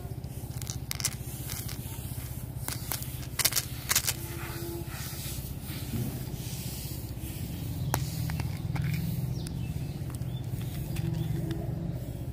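Small plastic toy soccer-ball container being handled and twisted open by hand: a few sharp plastic clicks and scraping, over a steady low hum.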